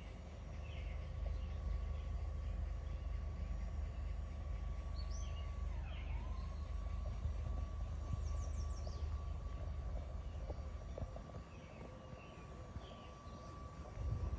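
Songbirds chirping in short calls, with a quick high trill partway through, over a low steady rumble that swells early and fades after about ten seconds. Light footsteps come in near the end.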